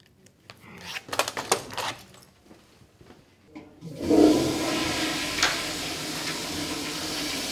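A toilet flushing: a sudden loud rush of water starts about halfway through and keeps going, after a few faint knocks.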